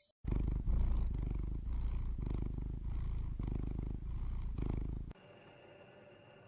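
Domestic cat purring close up, a low rattling purr that swells and eases with each breath, stopping about five seconds in; a faint steady hum with a thin high tone follows.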